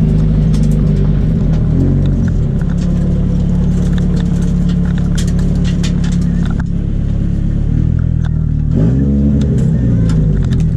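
Drift car's engine heard from inside the cabin, running steadily at low revs with brief rises and falls in pitch about two seconds in and again around nine seconds. Short clicks and rattles sound throughout.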